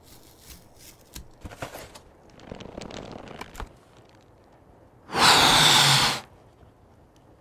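Sound effects for a cardboard box unfolding: light papery rustles and crinkles, with a rougher scraping stretch about halfway through. About five seconds in comes the loudest sound, a rush of air lasting about a second, as a red rubber balloon inflates.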